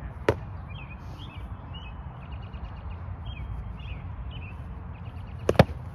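Foam-padded sparring weapons striking: one sharp hit about a third of a second in, then a quick double hit near the end, the loudest sound. Birds chirp in between over a low steady rumble.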